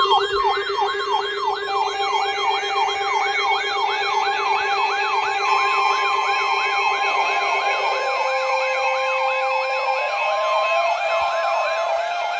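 Electronic emergency alert attention signal: a siren tone yelping up and down about three times a second over steady held tones. The lower held tone steps up in pitch about eight and ten seconds in.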